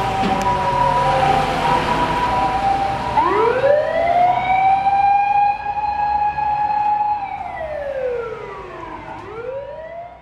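Ambulance's electronic siren: a steady two-tone sound for about three seconds, then a wail that rises, holds, falls and rises again. It fades toward the end.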